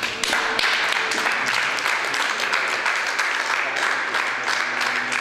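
Audience applauding steadily, a dense patter of many hands clapping, with a string ensemble faintly audible underneath.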